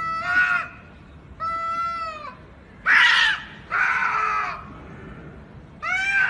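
Domestic cats yowling at each other in a fight standoff: about five drawn-out, wavering calls, the one about three seconds in the loudest and harshest.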